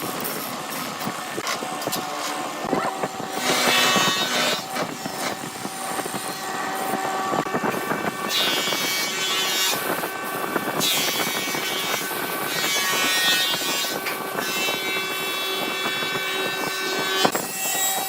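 Wood lathe running with a turning tool cutting the spinning wood: a steady machine hum, with louder hissing, whining stretches as the tool bites, at about three seconds, eight seconds and eleven seconds.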